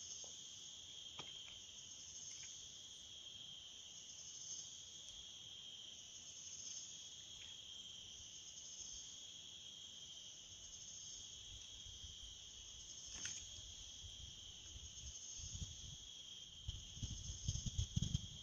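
Faint, steady chorus of insects, a shrill high drone that does not change. In the last few seconds low, irregular rumbling thumps come in underneath.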